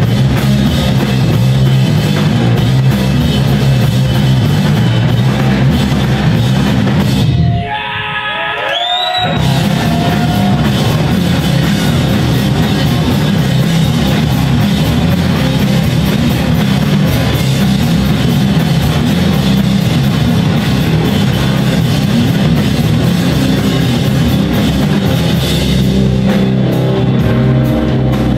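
A live rock band plays loud, with electric guitars and a drum kit. About eight seconds in, the band drops out for about a second while a single note glides upward, then the full band comes back in.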